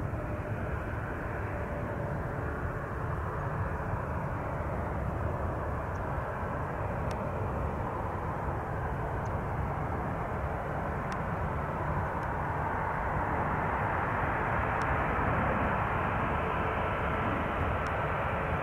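Airbus A321 on final approach with its landing gear down, its jet engines giving a steady rumble and rush that grows slowly louder as it comes nearer.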